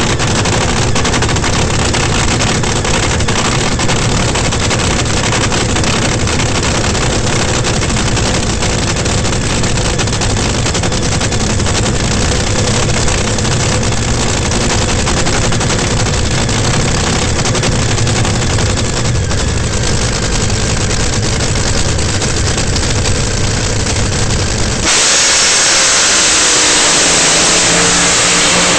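Top fuel dragster's supercharged nitromethane V8 idling on the start line, heard up close from behind the roll cage. About 25 seconds in the car launches at full throttle and the sound jumps louder and harsher.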